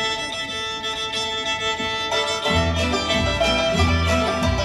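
Bluegrass string band playing live: a fiddle opens with long held notes, then about two and a half seconds in the upright bass, banjo and guitars come in with a steady beat.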